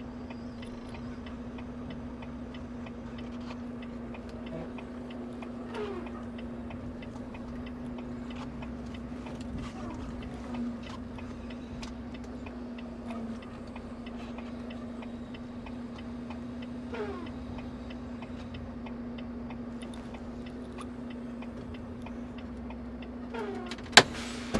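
Semi-truck engine running with a steady hum, under a faint, regular ticking. A single sharp loud click about a second before the end.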